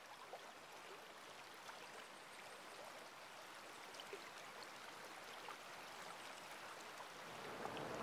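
Faint running water: a steady hiss with scattered small ticks, slowly growing louder near the end.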